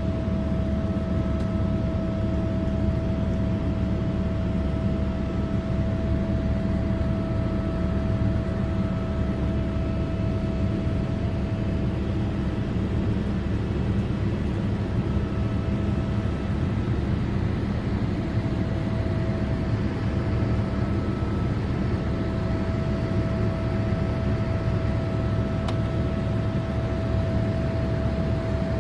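Cabin noise of a Boeing 787 in the climb after takeoff: the General Electric GEnx turbofan engines and the rushing airflow make a steady, even drone, with a constant whine running through it.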